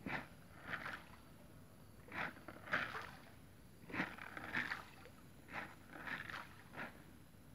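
A run of short splashes in water, mostly in pairs about half a second apart, every one and a half to two seconds.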